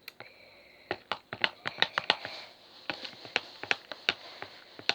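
Irregular light clicks and taps of hands handling a plastic container and a spoon while making slime, with a faint hiss during the first two seconds.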